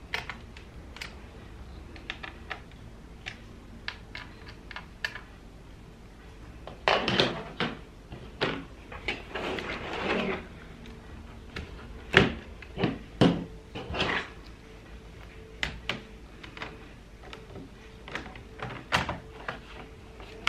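Hands handling a laptop's plastic casing and small parts on a desk: scattered clicks, taps and knocks, with two longer rubbing, scraping sounds about a third of the way and halfway through.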